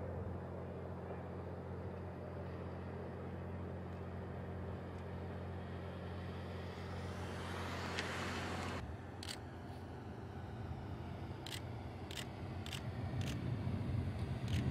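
Car driving past, likely the red 2011 Toyota Corolla on screen: a steady low engine hum under tyre noise that swells to a peak about eight seconds in, then cuts off abruptly. After that come a few short sharp clicks, and a low rumble that grows louder near the end as a car drives by again.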